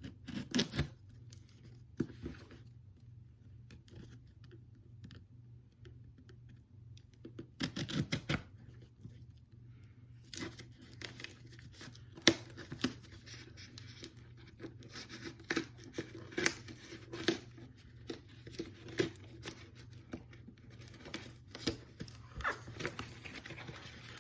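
Cardboard box and its packaging being opened by hand: irregular scrapes, clicks and tearing. A few bursts come in the first several seconds, and it turns busy and nearly continuous from about ten seconds in.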